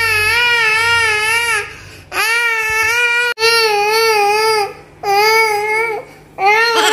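A young girl fake-crying: a string of loud, long, wavering wails, one after another with short breaths between. It is put-on crying, not real distress.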